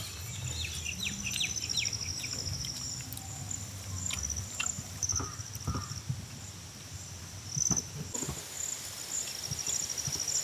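Insects chirping in repeated high-pitched pulsing trains, over a low rumble with a few scattered soft knocks.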